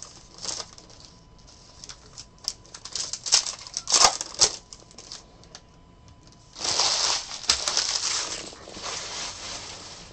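Foil trading-card pack wrapper crinkling as it is pulled open, with scattered clicks of card stock against card stock, then a longer rustle about two-thirds through as the stack of cards is handled and set down on the table.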